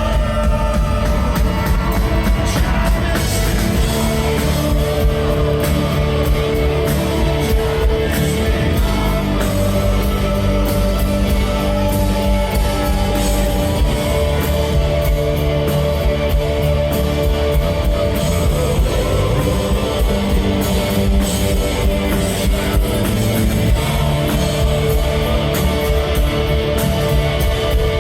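Rock band playing live, with electric guitar over bass and steady drum hits, loud and continuous.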